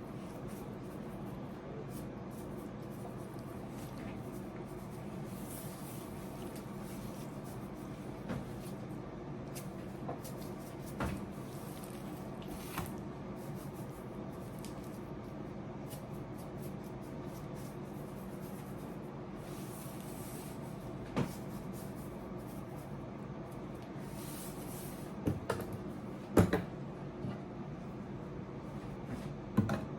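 Kitchen work sounds: a steady hum, as from an appliance or fan, with occasional knocks and clicks of cookware or cupboards. The loudest cluster of knocks comes about 25 to 27 seconds in.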